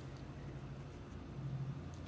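Quiet room tone: a low steady hum under a faint hiss, with no distinct events.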